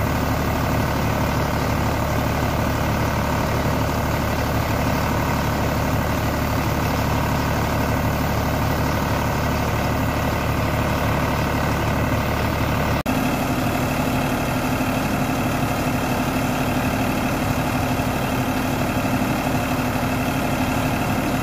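Sonalika DI-740 tractor's diesel engine running steadily while towing a turmeric polishing drum. The engine note shifts abruptly about two-thirds of the way through.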